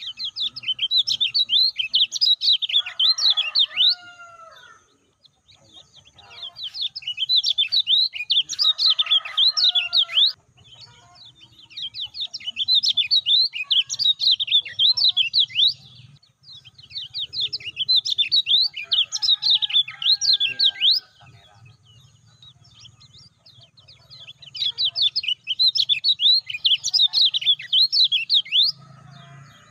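Kecial kuning white-eye singing in five fast bouts of high, rapid chirps, each lasting about four seconds with short pauses between them.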